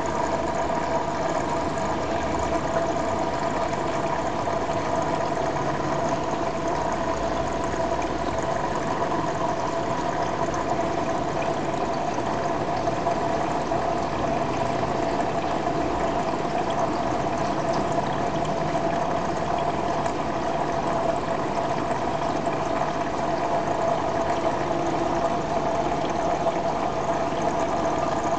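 Steady hum and water noise of an aquarium's pump or filter running, with a constant whine over it.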